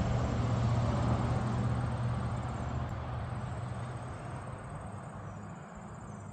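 A low engine drone, steady at first, fading away over the first few seconds, with insects chirping faintly in the background.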